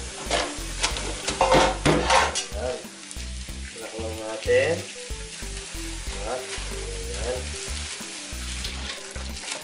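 A steady hiss under soft background music with held notes, with a few light knocks in the first couple of seconds.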